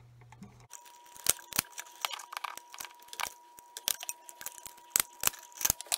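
Hand wire strippers working on the ends of copper house wires: a series of sharp, irregular clicks and snaps from the metal jaws as the insulation is stripped.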